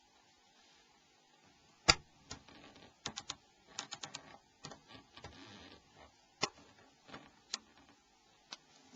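Irregular sharp plastic clicks and ticks as the snaps on a Nokia E70's T9 keypad cover are pried open with an opening tool. The loudest click comes about two seconds in, followed by quick clusters of clicks and then a few single ones.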